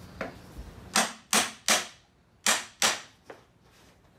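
Small hammer knocking on the wooden stile of a dry-fitted Windsor rocker to drive the unglued joints apart: two quick runs of three sharp knocks, the last knock lighter.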